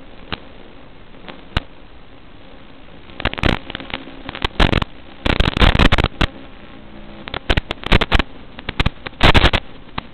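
Steady hiss broken by clusters of crackling static bursts, starting about three seconds in and heaviest in the middle and near the end: interference noise in the analog FPV video receiver's audio as the drone's video signal weakens and breaks up.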